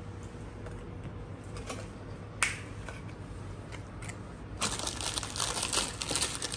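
Graham crackers and their plastic sleeve being handled over a glass baking dish: a few light ticks and one sharp click about two and a half seconds in, then from about four and a half seconds in a dense crinkling and crackling.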